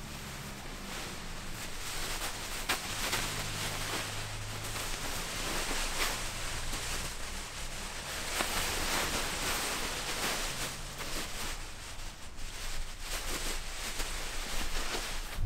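German wirehaired pointer puppies and their mother scuffling and playing on a fabric beanbag: irregular rustling of the cover with scattered soft knocks.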